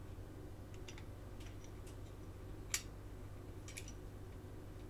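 Light clicks and ticks of a small diecast model's metal bottom plate being handled and fitted into its body, with one sharper click about halfway through and a few more a second later, over a low steady hum.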